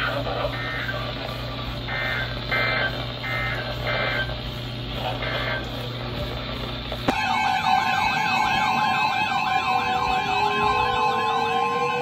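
Midland weather radios giving a string of short two-tone digital data chirps over a steady hum, the end-of-message bursts of a NOAA Weather Radio alert. About seven seconds in, it cuts to several electronic sirens warbling together, with one tone rising slowly.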